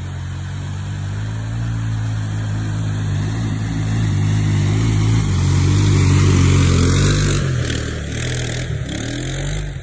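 1999 Arctic Cat 300 ATV's single-cylinder four-stroke engine running under load as it drives through deep mud, growing louder as it comes close about six seconds in, then fading as it passes. Near the end the tyres churn and spray mud.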